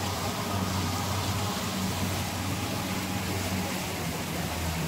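River cruise boat's engine running steadily under way, a low even hum, with water rushing and splashing along the hull.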